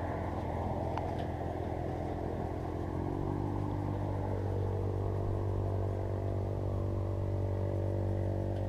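Car engine running steadily, its pitch stepping up slightly about three seconds in and then holding.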